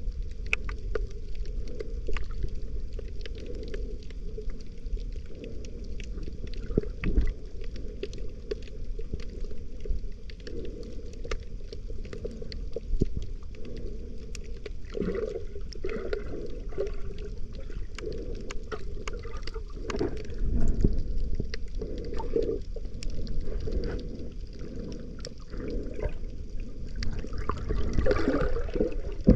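Underwater sound picked up by a camera in its waterproof housing: a muffled low rumble of moving water with many scattered clicks and crackles, swelling louder a few times.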